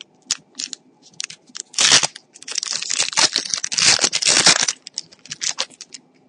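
Foil wrapper of a trading card pack being torn open and crinkled: a sharp rip just before two seconds in, then a couple of seconds of dense crinkling, with scattered crackles.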